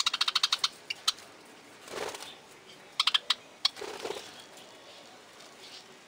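Budgerigars calling: two rapid strings of sharp chirps, one at the start and one about three seconds in, with softer warbling chatter between them.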